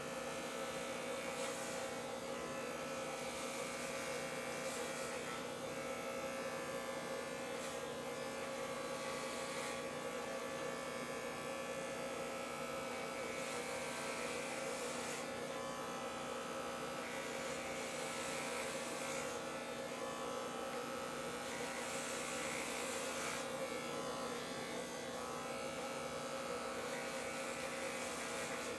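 Corded electric hair clippers buzzing steadily. Every few seconds there are bursts of hiss as the blades are pushed through short hair on the scalp.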